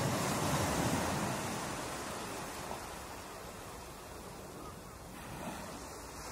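Ocean surf breaking: a steady rushing wash that eases off through the middle and builds again near the end.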